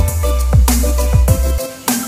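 Background electronic music with a heavy bass and a steady beat; the bass drops out briefly near the end.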